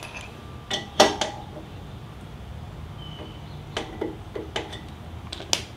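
Spoke torque wrench being fitted onto and turned on the spoke nipples of a chrome spoked motorcycle wheel: a handful of short, sharp metal clicks and clinks spread over several seconds, the loudest about a second in.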